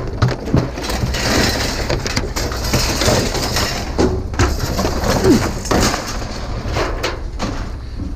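Scattered knocks and clatter of scrap items being handled, over a steady low rumble.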